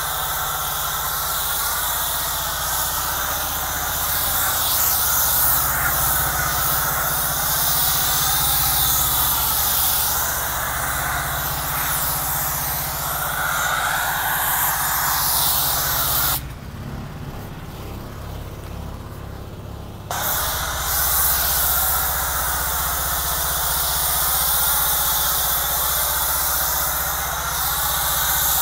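Pressure-washer foam cannon spraying thick foam, a steady hiss over the low running hum of the pressure washer. Midway the spray stops for about four seconds, leaving only the hum, then starts again.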